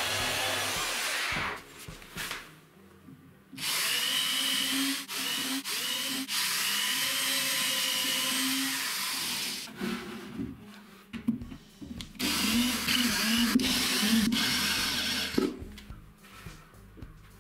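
Belt sander running on a pine board, cutting off about a second and a half in. Then a corded drill-driver runs in several bursts into the side of a wooden drawer, its motor pitch rising and falling with the trigger.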